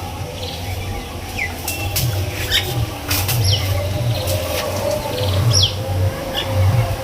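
Wind rumbling on the phone's microphone, with light handling clicks. Birds give a few short chirps that slide downward in pitch.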